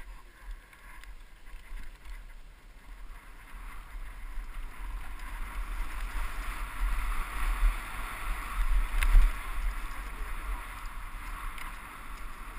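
Wind rumbling on a helmet-mounted camera's microphone with a rushing hiss while riding a downhill mountain bike down a dirt trail, louder in the middle as speed builds. A single sharp knock about nine seconds in.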